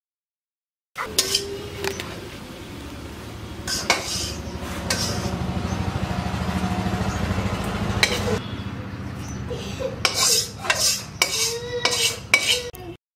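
A metal spatula scraping and clanking against a black iron kadai as stir-fried greens are scraped out into a steel bowl. A steady low rumble comes first, and the sharpest metal clinks and clanks fall in the last few seconds.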